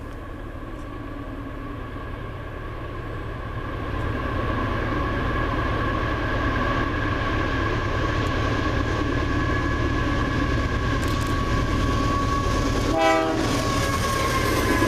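Canadian Pacific freight locomotive approaching with its horn sounding steadily on two tones over a low engine and rail rumble, all growing louder as it nears. A brief pulsed sound cuts in near the end as the locomotive reaches the camera.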